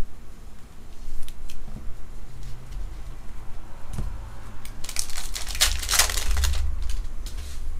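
A few light clicks of trading cards being handled, then, about five seconds in, a foil trading-card pack of 2020 Topps WWE Undisputed being torn open and crinkled for about two seconds.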